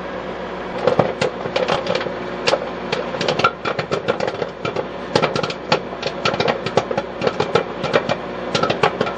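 Popcorn kernels popping in a Hamilton Beach microwave oven: irregular sharp pops, several a second, starting about a second in, over the steady hum of the running microwave.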